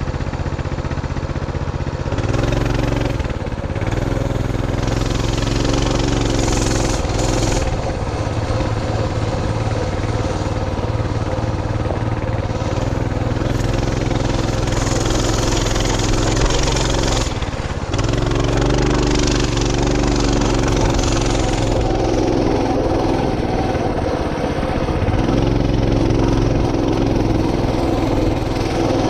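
Motorcycle engine running under way, easing off briefly a few seconds in and again about halfway through, then pulling again.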